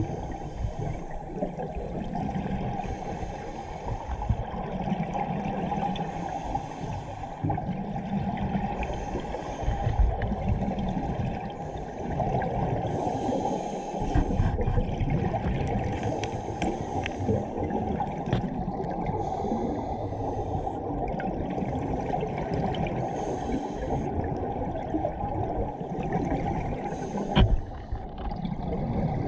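Scuba diver's regulator heard underwater through a GoPro housing: a steady muffled rush of water with a hissy burst of exhaust bubbles every two to three seconds. A sharp knock sounds near the end.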